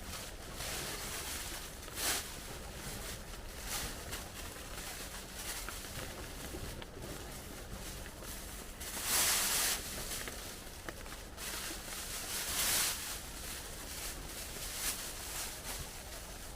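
Irregular rustling and crackling over a steady hiss, loudest in a burst of about half a second near the middle and again about three quarters of the way through.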